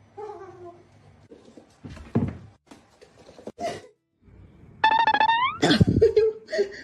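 Music with plucked strings, broken by a few thumps, and a short rising pitched glide about five seconds in.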